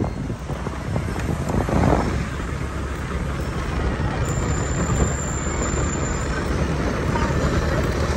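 Steady wind and road noise from riding a motorbike along a city street, swelling briefly about two seconds in.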